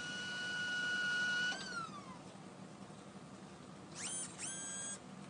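Nitrogen gas whistling through the sample lift of an NMR spectrometer as the sample tube is lowered into the magnet on its gas cushion. A steady whistle falls in pitch and dies away about a second and a half in, then two short whistles come near the end.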